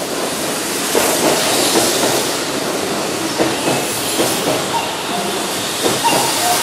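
Keihan 9000 series electric train moving alongside the platform: steady running noise with wheels clicking over the rail joints and brief tones from the VVVF-driven motors.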